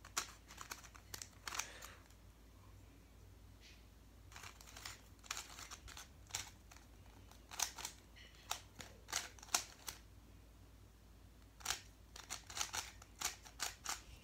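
A plastic barrel cube (a 3x3 shape-mod twisty puzzle) being turned by hand: quick irregular clusters of clicks and clacks as its layers turn, with two short pauses.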